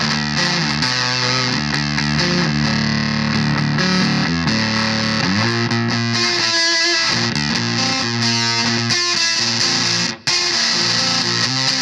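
Electric guitar played through a Volition Amps Vintage Fuzz pedal: fuzz-distorted notes and chords held and changing every second or so, with a brief break about ten seconds in.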